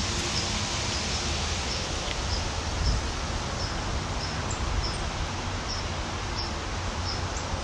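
Strong wind rustling through autumn tree leaves, with low wind rumble buffeting the microphone: a stormy gust of wind.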